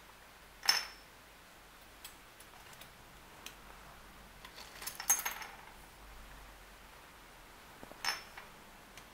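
Silver jewelry clinking and clattering as pieces are tipped out of a bag onto a table, in three short clatters: about a second in, around five seconds, and near the end.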